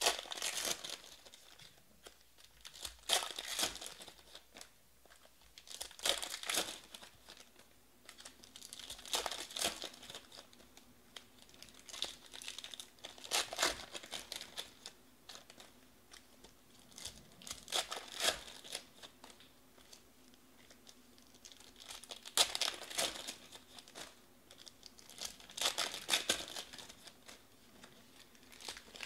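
Wrappers of 2020 Panini Select Baseball card packs being torn open and crinkled by hand, in about eight bursts a few seconds apart.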